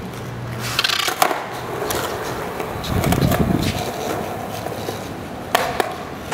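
Skateboard wheels rolling over a concrete sidewalk with a steady rumble that swells about three seconds in, with sharp clacks of the board on the ground about a second in and again near the end.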